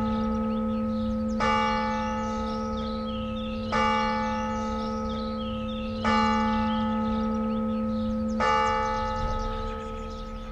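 A single large bell tolling slowly, struck four times at an even pace of about one stroke every two and a half seconds. Each stroke rings on and fades, and the last ring dies away near the end.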